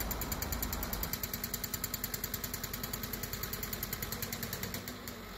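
Tractor engine idling, a steady, rapid, even pulsing.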